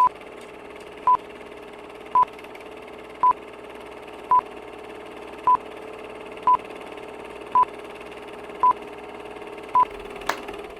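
Ten short, high electronic beeps about once a second, evenly spaced, over a steady low hum and hiss.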